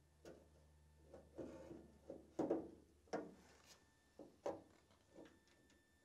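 Faint, irregular knocks and clicks from hand work on a Porsche 911's door hinge, a dozen or so sharp strikes, the loudest around the middle.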